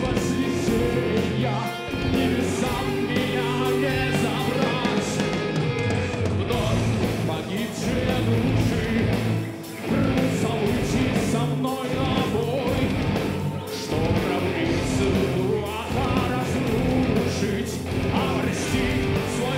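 Heavy metal band playing live: electric guitars and bass over drums, in a loud, continuous passage.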